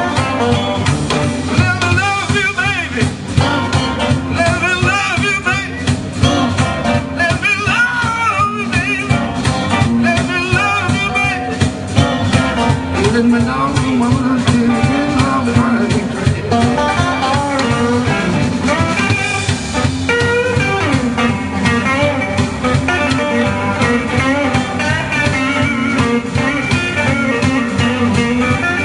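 Live electric blues band playing an instrumental passage, with electric guitars over bass and drums. A lead guitar line with bent, wavering notes stands out, most clearly in the first half.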